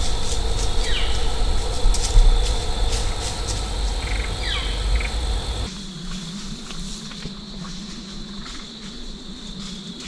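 Woodland ambience: a steady high insect drone over a low rumble, with two short falling bird calls about a second and about four and a half seconds in. About six seconds in it drops suddenly to a quieter, thinner background.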